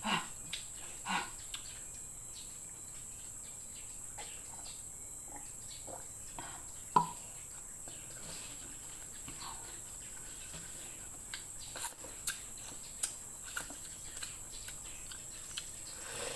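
Eating sounds: scattered light clicks and taps of utensils and plate, with chewing, the loudest tap about seven seconds in. A steady high-pitched whine runs underneath.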